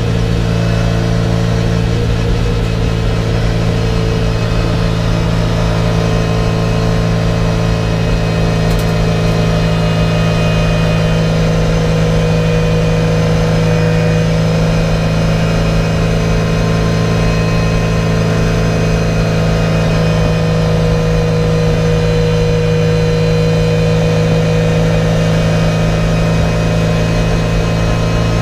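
Race car's engine heard loud from inside the cockpit, running at steady revs with no big rises or falls in pitch.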